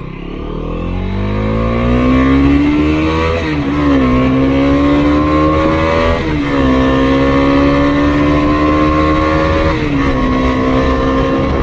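Bajaj Dominar 250's single-cylinder engine through its stock exhaust, accelerating hard through the gears: the engine note climbs, then drops with an upshift three times, each followed by a fresh, slower climb.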